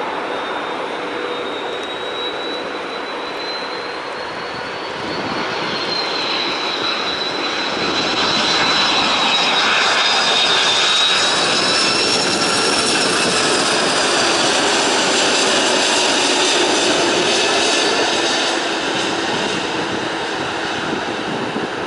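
Airbus A330-202 airliner on final approach with gear down, its twin turbofan engines a steady rush with a high whine. It grows louder as the jet passes close by, loudest in the middle, then eases as it moves away.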